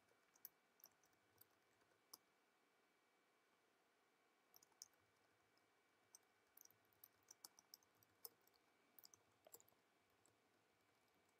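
Faint clicks of computer keyboard keys being typed in short scattered runs, the rest near silence.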